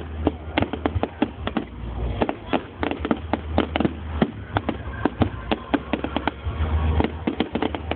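Aerial fireworks display: a rapid, irregular string of bangs and crackles from bursting shells, several a second.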